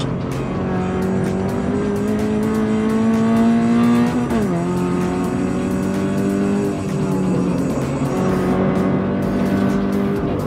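Toyota 86's flat-four engine through a Fi aftermarket exhaust, heard from inside the cabin under hard acceleration on track: the pitch climbs for about four seconds, drops sharply with an upshift, then pulls on steadily with a brief lift a little after halfway.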